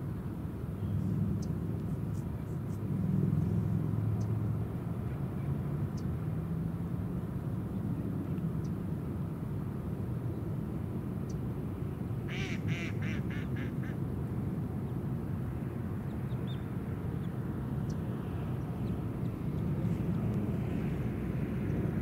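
A duck quacking about twelve seconds in, a quick run of about seven calls, over a steady low rumble.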